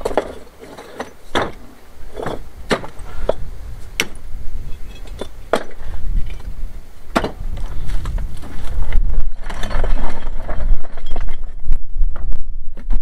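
Hardcore rubble stones being dropped and set by hand into a wooden form for a concrete base: a string of sharp stone-on-stone clacks, a fraction of a second to a second apart. In the last few seconds a rougher, denser rattle over a low rumble takes over as a metal bucket of stones is tipped into the form.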